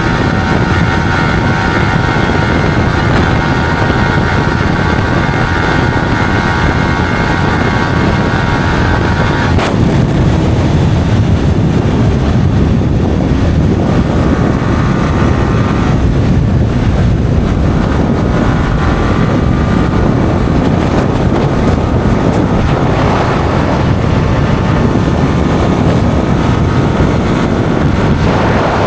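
Vehicle running steadily at speed with heavy wind noise on the microphone. A steady whine rides over it until about ten seconds in, then drops away.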